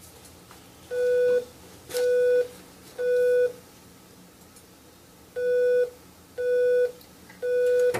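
Electronic beeps: two sets of three half-second beeps at one steady mid pitch, about a second apart, with a pause of about two seconds between the sets.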